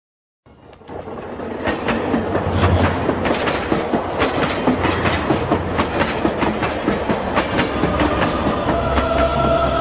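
Logo-intro sound effect: a dense rumbling clatter full of irregular clicks that fades in about half a second in and builds to a steady level, with held musical tones entering near the end.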